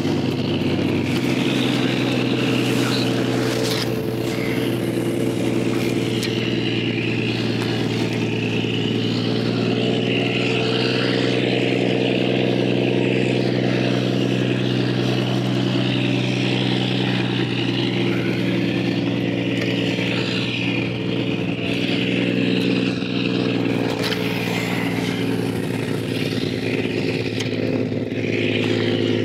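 Fishing boat's engine running steadily, a constant low drone with an even pitch, with a wavering hiss above it.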